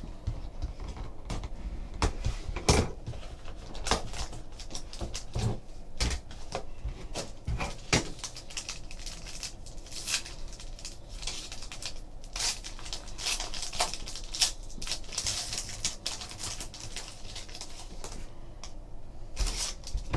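Silver foil trading-card pack being torn open and crinkled by hand, with irregular crackles and clicks as the cards are handled, the crinkling thickest in the second half.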